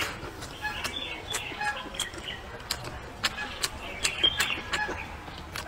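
Chewing of braised pig's ear, with irregular wet mouth clicks and smacks. Birds chirp in short notes in the background.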